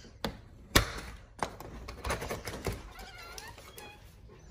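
A door being unlocked and opened by hand: a few sharp clicks and one loud thunk as the lock and latch turn, with the loudest about a second in. A dog whines briefly near the end.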